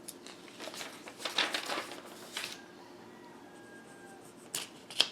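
Sheets of paper being handled and rustled, with a few sharp clicks near the end.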